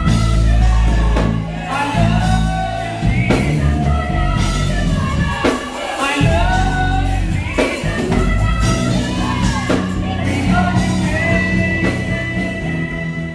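Church praise team singing gospel with band accompaniment: a male lead singer over backing vocalists, with steady beats and a heavy bass line.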